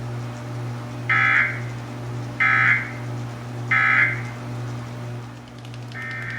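Emergency Alert System SAME data tones: three short screeching bursts, about a second and a quarter apart, the end-of-message signal that closes the test. Near the end a longer burst of the same data tones begins. A steady low hum runs underneath.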